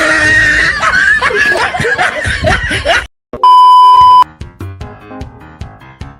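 Loud edited-in music with shrieking, laughing voices for about three seconds, then a sudden stop, a brief silence, and a loud steady high censor-style beep lasting under a second. Quieter background music with a steady beat follows.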